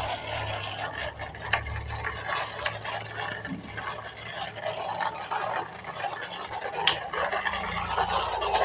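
Plastic toy dump truck's wheels rolling and rattling over a rough concrete floor as it is pulled along on a string, a steady scraping clatter of small clicks.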